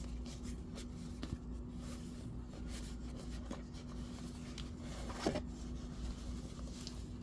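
Handling of a cardboard watch box and leather watch pouch: soft rubbing and scraping, with a few light taps, the clearest about five seconds in, over a steady low hum.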